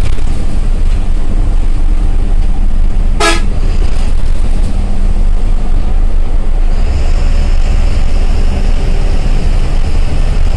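Ashok Leyland GSRTC bus engine running under way, with steady road noise inside the cab, and one short toot of the bus horn about three seconds in. The engine note shifts and gets a little heavier about seven seconds in.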